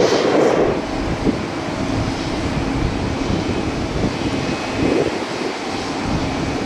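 Wind buffeting the microphone over the steady hum of distant aircraft engines, with a louder gust in the first second and another about five seconds in.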